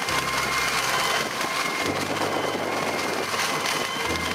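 Tractor with a boom-mounted ditch-cleaning attachment running as its head churns through a drainage ditch: a steady machine noise with a thin constant whine.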